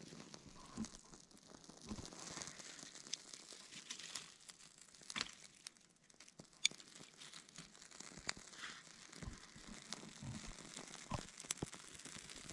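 Birch-bark tinder burning with faint, scattered crackles, while thin dry twigs rustle and click as they are laid over the flame.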